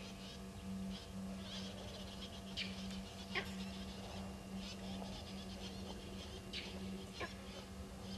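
Birds calling in the bush: sharp, quick down-slurred notes a few times, with chattering between them, over a steady low hum.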